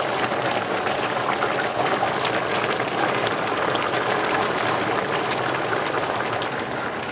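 Large aluminium pot of sliced beef simmering in brown broth, bubbling and crackling steadily while a metal ladle stirs it.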